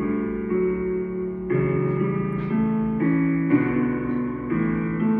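Background instrumental music: sustained chords that change every half second to a second.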